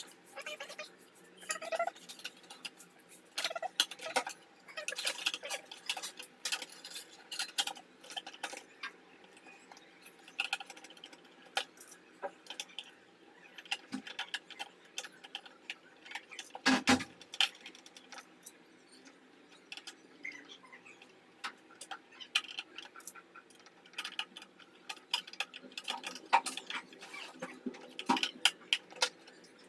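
Irregular clicks and taps of small hard parts being handled, with one louder knock about two-thirds of the way through.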